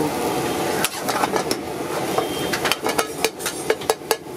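Steel ladle clanking and scraping against an iron kadai as rice is stir-fried. The sharp metal clanks come in quick runs and grow more frequent through the second half.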